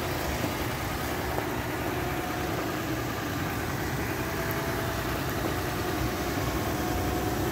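A vehicle engine idling steadily: an even low rumble with a hiss over it.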